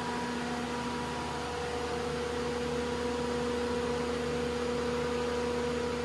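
CAT 299D2 compact track loader's diesel engine idling steadily, with a steady whine over the engine's hum.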